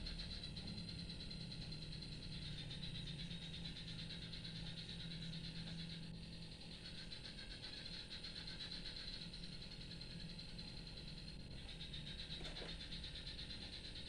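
Recorded swift calls played back as a steady, high, rapid twittering, over a low steady hum.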